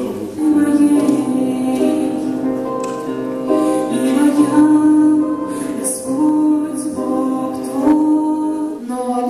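A woman singing a slow song solo into a handheld microphone, in phrases of long held notes.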